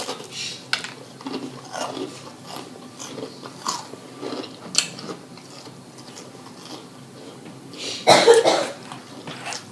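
A person biting and chewing fried food close to the microphone: a run of short crunches and wet mouth sounds, with one louder burst about eight seconds in.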